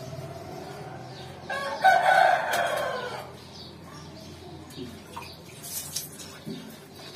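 A rooster crowing once, starting about a second and a half in and lasting nearly two seconds, its pitch sliding down at the end.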